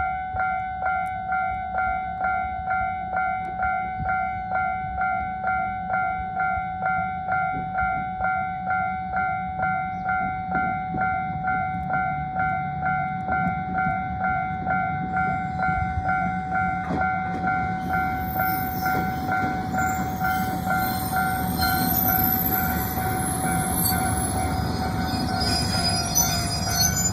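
Electronic level-crossing warning bell ringing, the same chime repeated at a steady pace throughout. From about halfway a train's rumble builds under it as the train comes through the crossing, and high wheel squeals join it near the end.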